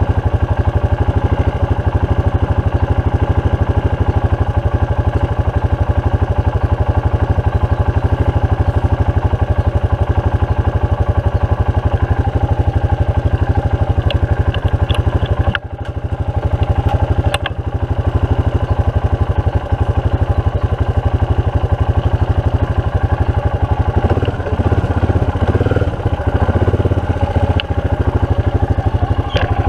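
ATV engine idling steadily, picked up close from the handlebars, with two brief dips about halfway through; in the last few seconds its note turns heavier and less even.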